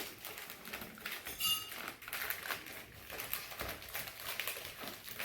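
Rustling and small irregular clicks of a mailed package being handled and opened, with a brief squeak about one and a half seconds in.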